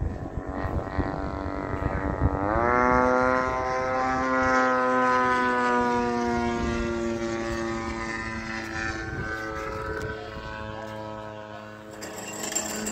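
RC aerobatic airplane's engine: it throttles up about two seconds in with a quick rise in pitch, then holds a high, steady note that slowly sinks in pitch, and rises again near the end.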